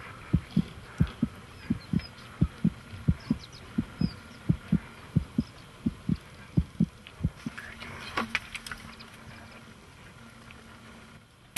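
Heartbeat sound effect: steady paired lub-dub thumps at about 85 beats a minute, stopping about two-thirds of the way through, leaving faint rustling and a low hum.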